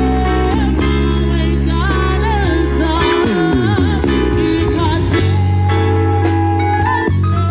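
Live band playing an instrumental passage: held electronic keyboard chords over a bass line, with a wavering melody on top and a quick falling run about three seconds in.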